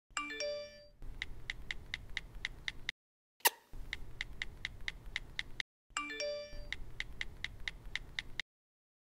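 Fast, even ticking at about five ticks a second, cut off abruptly several times by dead silence. A short run of bell-like chimes comes right after the start and again about six seconds in, and a single sharp click about three and a half seconds in.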